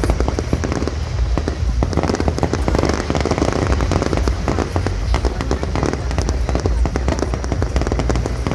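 Fireworks display in a dense barrage: many shell bursts and crackling reports in rapid succession over a continuous low rumble.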